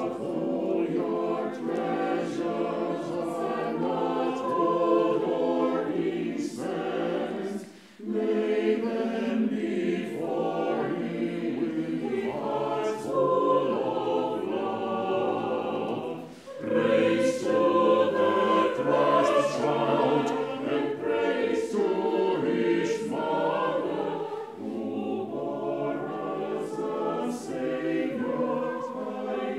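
Mixed choir of men and women singing a sacred or Christmas piece in parts, with short breaks between phrases about eight and sixteen seconds in.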